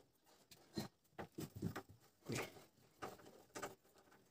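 Faint, scattered light clicks and scrapes of a screwdriver working a screw out of a stainless steel gas stove top, with a small tap about every half second.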